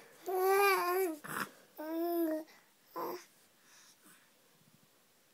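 A young baby cooing: two long, drawn-out vowel sounds in the first two and a half seconds, then a short breathy sound and a brief coo around three seconds in.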